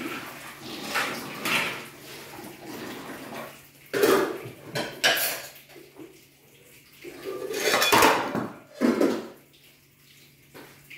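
Dishes being washed by hand at a sink: pots, plates and cutlery clanking against each other in irregular knocks and clatters, the loudest a few seconds in and again past the middle.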